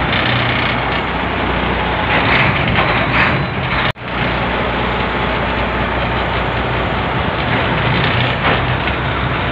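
A passenger launch's engine running steadily: a low hum under loud, even noise, cutting out for an instant about four seconds in.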